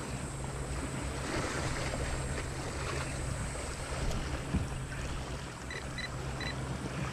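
Small waves lapping around a kayak at sea, with wind buffeting the microphone and a steady low hum underneath. A few short, high electronic beeps come near the end.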